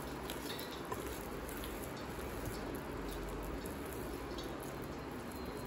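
Wet squelching of thick rice-flour bonda batter being squeezed and mixed by hand in a bowl.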